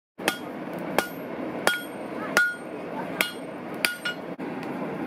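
Blacksmith's hammer striking metal held in tongs on an anvil: six ringing blows, about one every 0.7 seconds, over a steady low rush.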